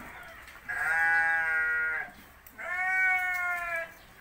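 Sheep bleating twice as it is held and sheared: two long bleats of a little over a second each, about half a second apart.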